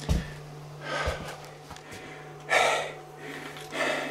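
A man breathing heavily and sighing close to the microphone, three audible breaths in all, over a faint steady low hum; a soft low thump comes right at the start.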